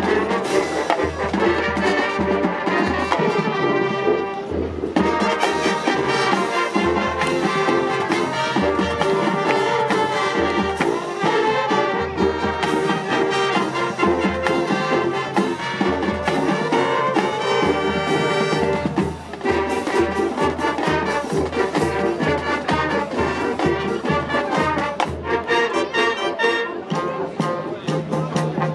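Marching band playing: brass section carrying the tune over a steady, regular beat of bass drums.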